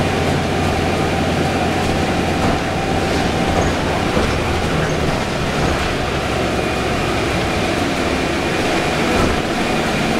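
Interior of a 2011 Orion VII hybrid city bus under way: steady running noise of its drivetrain and tyres, with a steady whine that drops out about three and a half seconds in.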